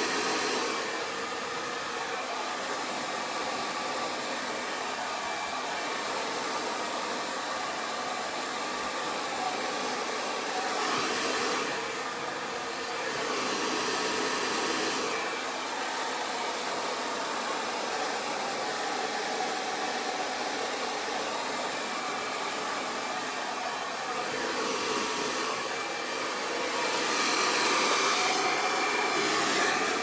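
GHD Helios hair dryer running steadily, a continuous rush of blown air that swells louder several times, most of all near the end, as it is moved around the head.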